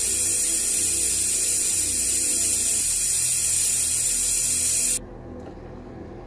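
Air-powered vacuum brake bleeder hissing steadily as compressed air drives it, sucking brake fluid and air bubbles out through the caliper's bleed nipple. The hiss cuts off suddenly about five seconds in, when the trigger is released.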